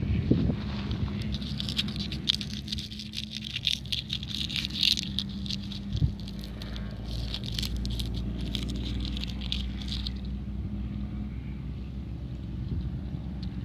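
Dry papery husk of a husk tomato (Physalis ixocarpa) crackling as it is crushed and torn open by hand, a dense run of crisp crackles that stops about ten seconds in. Under it runs a steady low hum.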